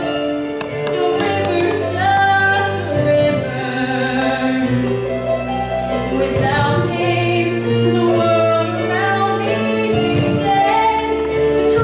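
A woman singing a slow musical-theatre ballad over orchestral accompaniment, the low strings holding long notes beneath the melody.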